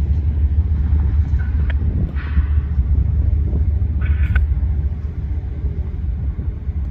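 Diesel locomotives of a freight train passing slowly, their engines making a steady low rumble, with a couple of short higher-pitched noises about two and four seconds in.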